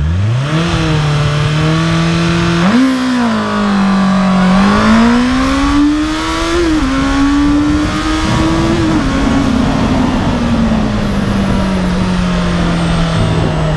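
Honda CB650R's inline-four engine pulling hard from a standstill, the revs climbing in surges with sudden drops in pitch at the gear changes. Over the last few seconds the revs fall slowly as the throttle closes and the bike slows.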